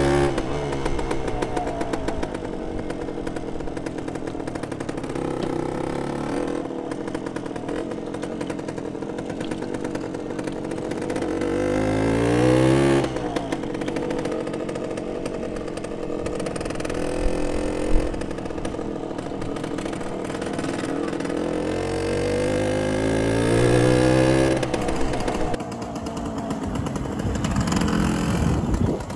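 1974 Suzuki RV125's 125 cc single-cylinder two-stroke engine running as the bike is ridden. Twice the revs climb, the pitch rising, then drop suddenly.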